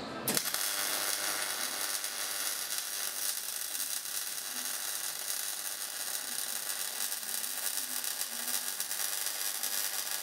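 Wire-feed welder's arc crackling steadily as a weld is run on steel box-section tubing. The arc strikes sharply just after the start and cuts off at the end.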